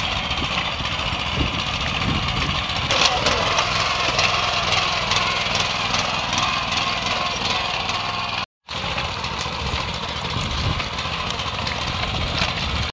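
Walk-behind rice transplanter's small engine running steadily while it plants in a flooded paddy, with faint rhythmic ticking from the planting mechanism. The sound cuts out for a moment about two-thirds of the way through, then resumes.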